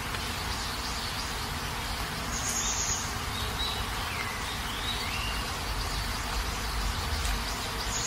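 Tropical forest ambience: a steady hiss of insects, with a few short bird whistles gliding up and down about halfway through.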